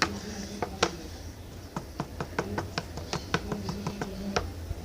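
Sticky homemade slime being worked in a plastic bowl, giving a run of sharp, irregular clicks and taps, several a second, thickest in the second half.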